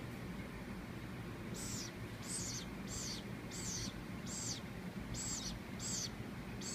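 Baby woodpecker calling: a run of about eight short, high-pitched chirps, each dropping in pitch, repeated about one and a half times a second from about a second and a half in.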